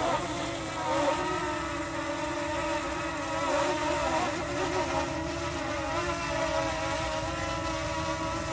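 DJI Mini SE drone's propellers whining, several buzzing tones that waver in pitch, with wind buffeting the microphone.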